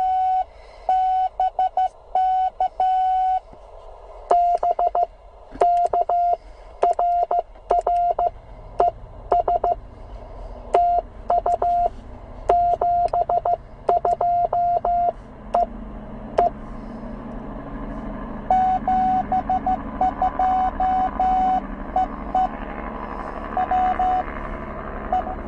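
Morse code (CW) from a Penntek TR45L HF transceiver: a steady beep of about 700 Hz keyed on and off in dots and dashes. For the first sixteen seconds the tone is loud and clean. After a short break a fainter keyed signal comes in over rising band hiss.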